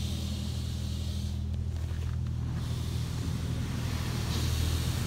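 PDQ Laserwash 360 Plus touchless car wash spraying the car, heard from inside the cabin: a hiss of water on the body and glass over a steady low hum. The spray hiss fades for about a second a little after the start and comes back stronger near the end.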